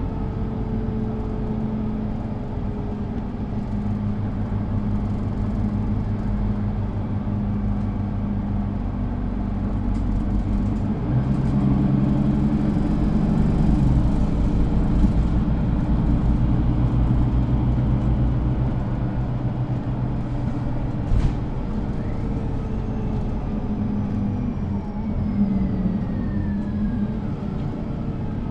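Mercedes-Benz O530 G Citaro articulated bus under way, heard inside the passenger cabin: its diesel engine and Voith automatic gearbox run steadily. The engine pitch rises about eleven seconds in and settles again a few seconds later. A single click sounds about twenty-one seconds in, and a faint falling whine follows near the end.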